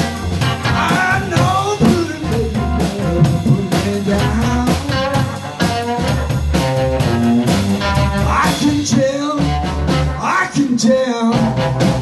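Live blues band playing: electric guitar, upright double bass and drum kit, with a lead vocal over them.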